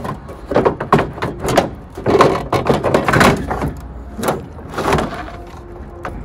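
Plastic lower front bumper panel of a Suzuki Alto being pulled down and opened by hand: a run of knocks, clicks and rattles in short clusters.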